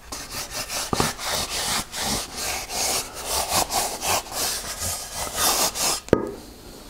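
Hand briskly rubbing walnut oil finish into the face of a wooden plate: a run of dry, hissing back-and-forth strokes, about two a second. The rubbing stops with a sharp knock about six seconds in.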